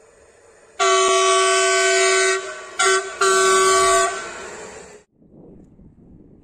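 Electric passenger train's horn sounding three times: a long blast of about a second and a half, a brief one, then another of about a second, fading away before the background goes quiet.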